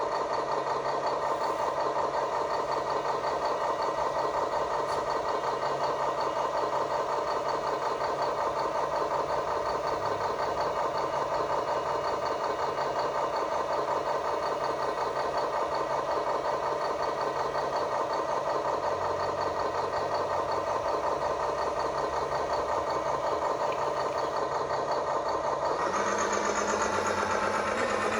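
Scale RC construction machine running with a steady engine-like drone. About 26 s in, the pitch shifts and the sound brightens.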